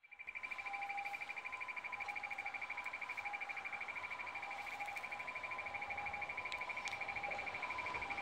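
Tram approach warning sounding while the stop's indicator reads 'tram is coming': a steady, fast-pulsing high electronic beep with two lower tones alternating beneath it, announcing a tram bound for Hiroshima Station.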